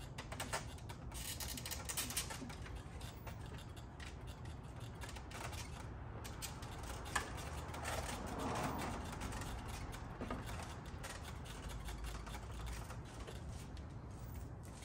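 Scattered small plastic clicks and taps as the G63's grille bezel is worked by hand and pressed back into its clips, with one sharper click about seven seconds in.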